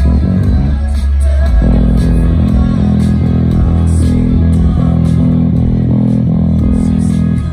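Rock band sound-checking through the stage PA: loud electric bass and guitar holding heavy low notes, with cymbal strokes over them. The low notes drop out about half a second in and come back around a second and a half in.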